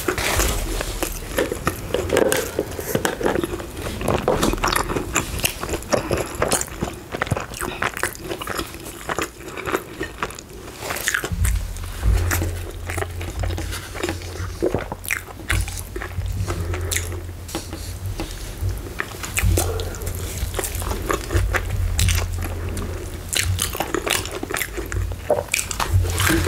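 Close-miked eating sounds: repeated bites and chewing of KFC fried chicken and coleslaw, with crunches and many small wet mouth clicks. A low steady rumble joins about eleven seconds in.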